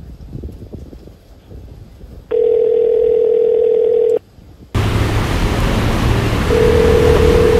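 Telephone ringback tone heard through a phone: one steady, single-pitched ring about two seconds long as an outgoing call rings. A loud steady hiss then sets in, and a second ring of the same pitch starts near the end.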